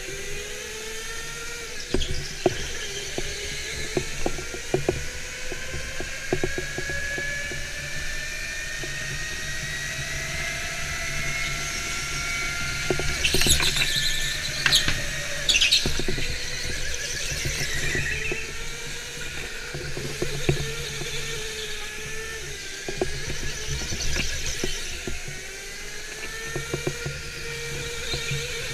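Electric go-kart motor whining, its pitch climbing and dropping as the kart speeds up and slows for the corners. Scattered knocks run through it, and a cluster of brief high squeals comes about halfway through.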